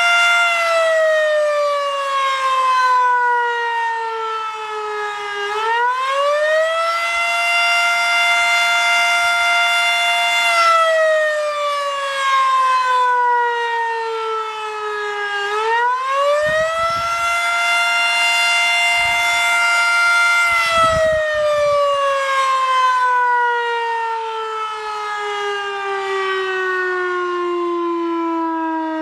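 W.S. Darley Champion mechanical fire siren sounding its attack cycle: a loud, pitched wail that holds a steady high note, sags in pitch over about five seconds, then winds back up to hold again. This happens twice, and in the last third it begins a long steady fall in pitch as it winds down.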